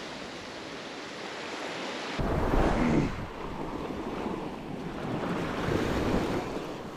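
Ocean surf washing onto a beach, a steady rushing noise, with wind buffeting the microphone from about two seconds in.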